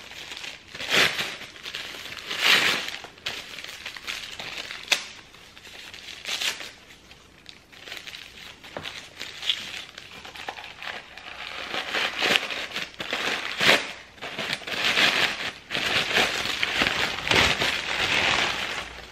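White wrapping paper crinkling and crumpling as a drinking glass is unwrapped by hand, in irregular rustles that grow denser and louder from about twelve seconds in.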